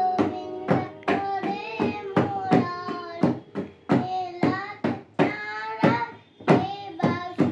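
A young child singing a Hindu devotional song, with sharp hand strokes on a two-headed barrel drum (dholak) keeping a steady beat of about two to three strokes a second.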